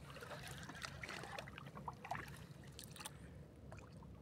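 Water lapping and trickling against a small outrigger boat's hull, with a low steady hum underneath and scattered faint clicks.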